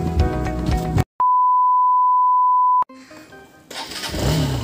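Background music cuts off about a second in, followed by a single steady electronic beep at one pitch lasting about a second and a half. Near the end, motorcycle engine and wind noise begin.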